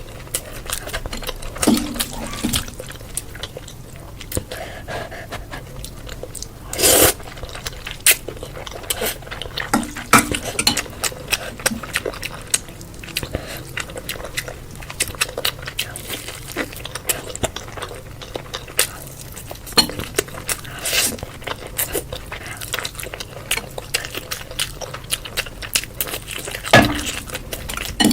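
Close-miked eating sounds: wet chewing and mouth smacking made up of many short sharp clicks, with a louder burst about seven seconds in.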